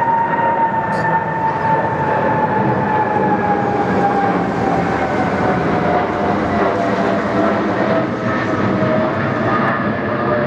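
Boeing 777-200ER jet engines at departure power: a loud roar with a high screeching whine on top that slides slowly down in pitch.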